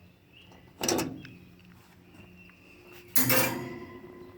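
Two clunks of grill parts being handled during assembly, about two and a half seconds apart; the second is the louder and leaves a short ringing tone.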